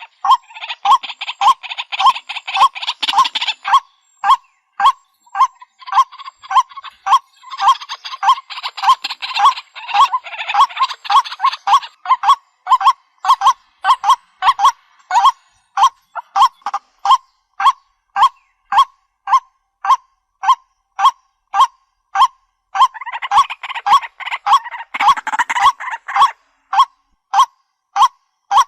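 White-breasted waterhen calling: a loud, short call note repeated steadily about twice a second, with stretches of rougher, harsher calling layered over it at the start, about a third of the way in and near the end.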